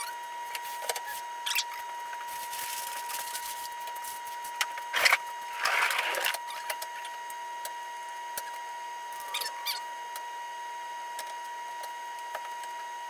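Workshop handling noises: scattered light clicks and knocks as plywood pieces are moved about, with a louder knock about five seconds in followed by a brief rustle, over a steady high-pitched hum.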